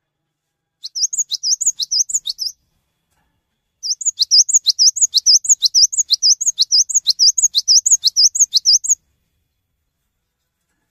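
Cinereous tit (gelatik batu) singing a rapid, ringing run of repeated high sweeping notes, in two bursts: a short one about a second in, then a longer one of about five seconds.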